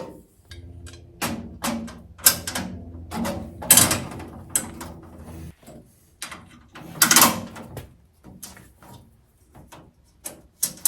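Metal clanks and knocks as the handle is fitted onto a sheet-metal welding cart, sharp single strikes scattered through, the loudest about four and seven seconds in. A steady low hum runs underneath for the first five seconds or so.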